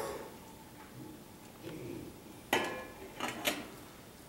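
Quiet clinking of communion trays and cups being handled and passed: a sharp clink with a brief ring about two and a half seconds in, then two lighter clinks just under a second later.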